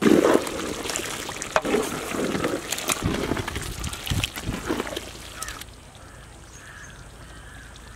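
Thick chicken curry gravy being stirred and ladled in a large pot: wet squelching and splashing with many small clicks, easing off to a quieter, steadier bubbling about five and a half seconds in.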